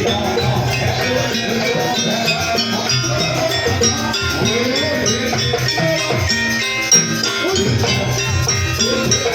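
Jaranan gamelan music: drums and metallic gong-chime percussion on a steady, driving beat, with a melody that slides up and down over it.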